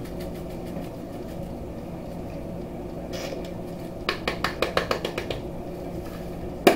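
Lemon pepper shaken from a spice shaker into a bowl of flour: a quick run of about ten rattling shakes a little past the middle. Near the end comes a single sharp click as the cap of the next spice shaker is opened. A steady low hum runs underneath.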